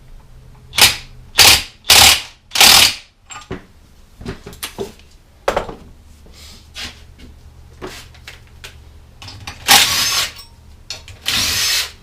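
Impact wrench run in short bursts to tighten the pinion nut a hair at a time, setting pinion bearing preload: four quick bursts in the first three seconds, light clanks of tools and parts, then two longer bursts near the end.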